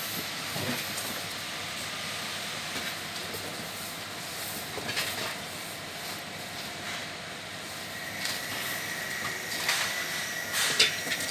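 Portable cow-milking machine running: a steady hiss with intermittent clicks, and a steady high whine joining about eight seconds in.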